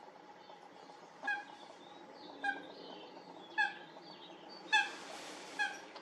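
Common moorhen calling: five short, loud, clipped notes about a second apart, over faint background chirping and a brief hiss near the end.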